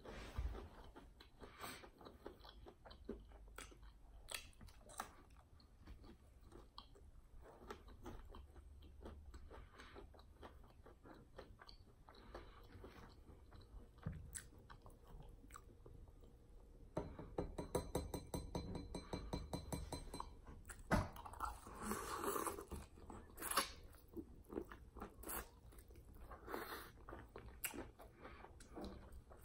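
Close-miked chewing and crunching of fried chicken wings, with wet smacking and sucking as the meat is cleaned off the bones; it gets busier and louder about two-thirds of the way in.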